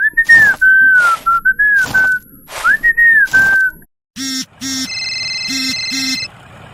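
A whistled tune gliding up and down, broken by sharp knocks, followed by a few short buzzy beeps at a steady pitch.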